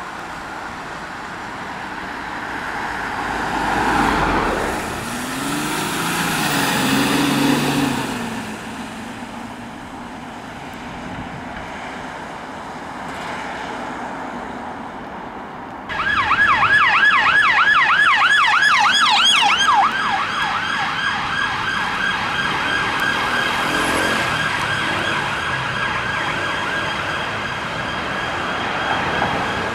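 A vehicle engine runs and rises in pitch as it pulls away. About halfway through, a police car siren starts suddenly: a fast yelp for about four seconds, then a steadier tone that holds to the end.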